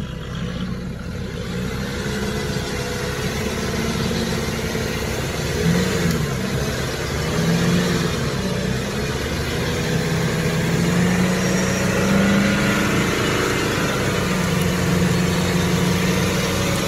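Nissan Patrol Y61's engine revving up and down under load as its 38.5-inch tyres spin in deep mud, the truck stuck. The revs waver repeatedly and get a little louder about a third of the way in.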